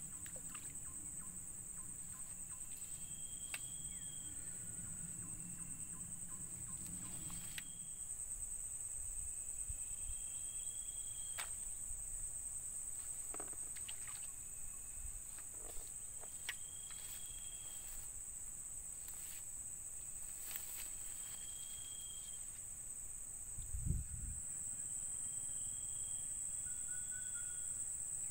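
Steady high-pitched drone of insects, with short flat whistled calls repeating every few seconds. A low rumble fades out about a quarter of the way through, and there is a single thump near the end.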